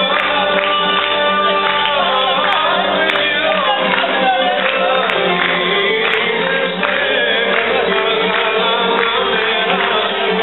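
Greek folk dance music with singing and a steady beat in the bass, accompanying a line dance.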